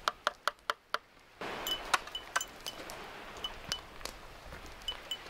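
A metal can tapped sharply about six times in quick succession to knock food out onto a flat stone. Then a German Shepherd licks and eats the food off the stone, with light metallic clinks.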